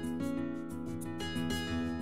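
Instrumental background music with held notes that change about once a second.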